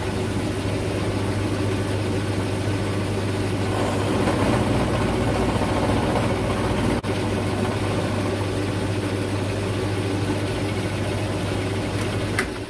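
Milling machine running, its end mill taking a light cut in a metal block: a steady motor hum with a brief click about halfway through. The machine is switched off near the end and the sound falls away.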